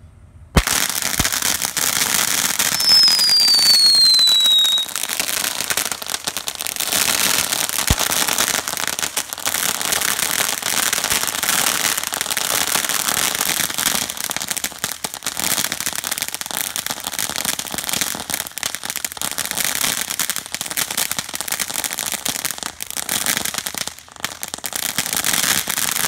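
Consumer ground fountain fireworks spraying sparks: a sudden start about half a second in, then a continuous crackling hiss, with one falling whistle about three seconds in.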